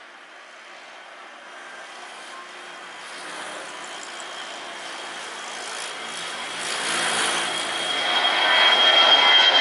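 Jet airliner's engines growing steadily louder as it approaches, a rushing noise with a steady high whine that strengthens near the end.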